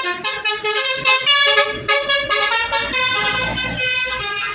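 Basuri V3 telolet musical bus horn playing a fast tune of stepped notes, several horn tones sounding together. A low engine rumble joins underneath from about halfway through.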